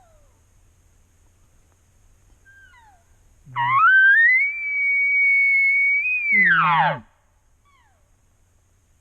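Elk bugle: a low growl that climbs into a long high whistle, held for about two seconds, then breaks down steeply into grunts. A few faint short falling mews come just before it.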